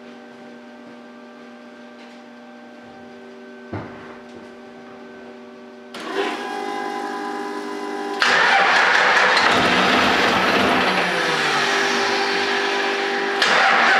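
12-valve Cummins diesel turned over by its starter about six seconds in, then jumping much louder about two seconds later as it fires and keeps running, being started after a head gasket replacement.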